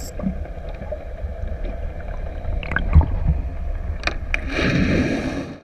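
Muffled low water rumble heard through an underwater camera housing, with a few sharp clicks about three and four seconds in. In the last second a rush of bubbling hiss rises, then fades out.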